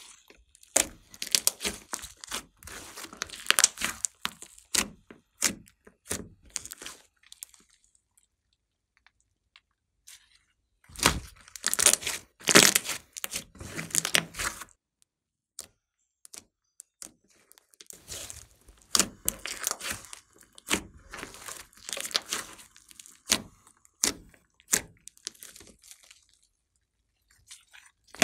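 Glossy slime being stretched, pulled apart and squeezed by hand: sticky crackling and popping in three spells with short quiet pauses between.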